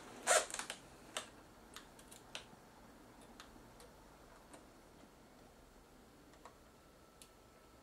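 Light clicks and ticks of small plastic and metal parts being handled inside a Sony DSR-PD170P camcorder during reassembly: one sharper click near the start, then scattered faint ticks.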